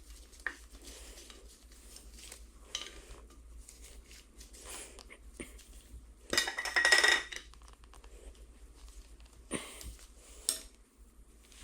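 Steel milling-head parts clinking against each other as they are handled, with scattered light clicks and one longer bout of ringing metallic rattling about six seconds in.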